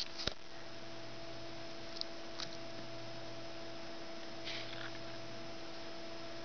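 Steady electrical hum with a few faint rustles and clicks.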